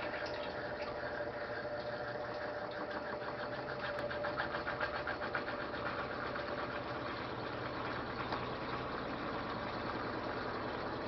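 Top-loading washing machine running, its motor turning the tub and agitator through the water and clothes with a steady hum, and a fast rhythmic rattle that stands out from about three to six seconds in.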